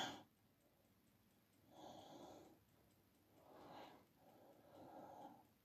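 Near silence, with three faint, soft breaths.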